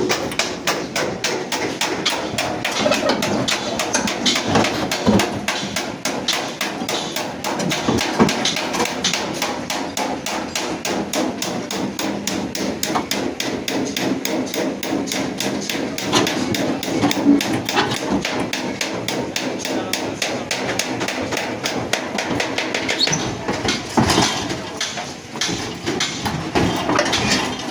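Steady, rapid hammer blows on sheet metal, several strikes a second, as dented front body panels of a Suzuki Ravi pickup are beaten out in accident repair.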